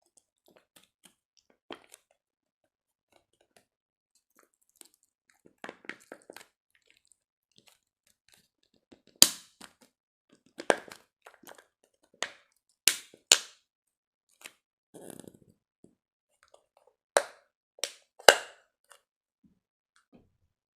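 Jiggly slime being pressed and squished by hand, giving off irregular sharp pops and crackles as trapped air bubbles burst, with several louder pops in the middle and toward the end.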